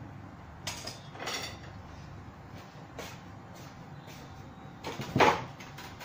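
A few short kitchen handling knocks and scrapes, the loudest about five seconds in, over a faint steady background.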